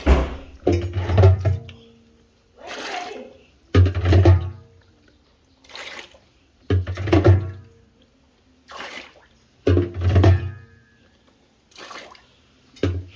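Water in a washing machine sloshing and splashing in a regular rhythm, a heavy surge about every three seconds with lighter splashes in between.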